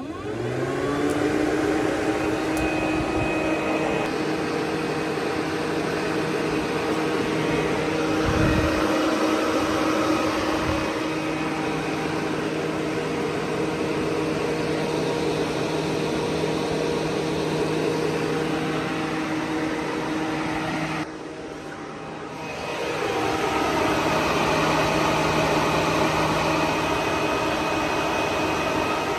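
Aftermarket electric radiator cooling fan starting when its control wire is grounded: it spins up with a rising whine, then runs at a steady pitch. About two-thirds through it drops out briefly and spins back up, as the ground contact is lost and made again.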